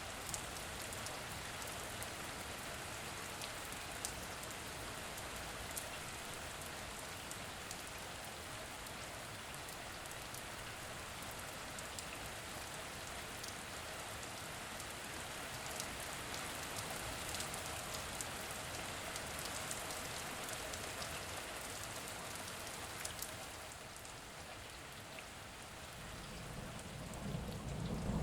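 Steady rain falling, an even hiss with scattered sharp drop ticks. The sound dips slightly late on, then swells in the last couple of seconds.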